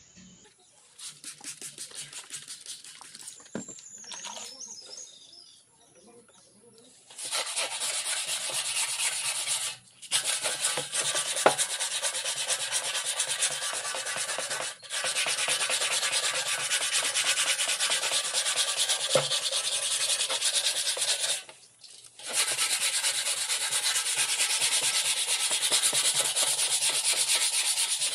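Sanding on a motorcycle fuel tank: a few seconds of light, rhythmic rubbing, then from about seven seconds in a louder, steady sanding noise that stops briefly three times.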